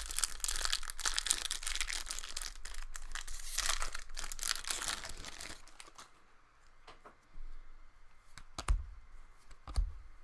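A foil trading-card pack being torn open, its wrapper crinkling and rustling for about the first five seconds. The cards are then handled more quietly, with a few sharp taps near the end.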